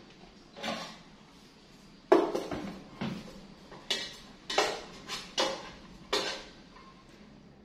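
Metal kitchenware clattering as a stainless steel pot and a rice cooker are handled on a counter: a run of separate clanks and knocks, the loudest about two seconds in.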